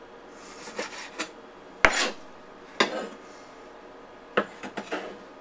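Kitchen knife cutting tomato on a cutting board: a few irregular scraping strokes of the blade through the flesh and onto the board, the loudest a sharp knock about two seconds in.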